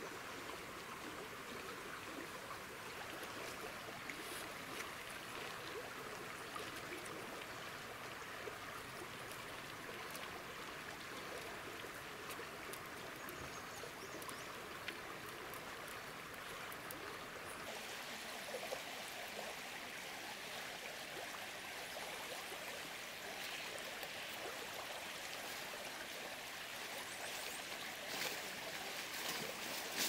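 A shallow river flowing, a steady rush of water, with a few light knocks and clicks over it.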